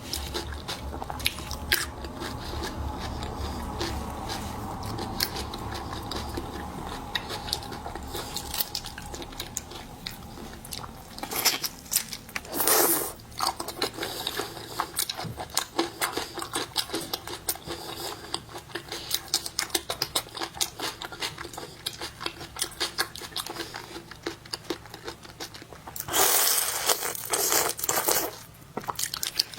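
Close-miked crunching, cracking and chewing of shellfish (shrimp and crab) being shelled and eaten: many sharp clicks, with two louder crackling bursts, a short one a little before halfway and a longer one near the end.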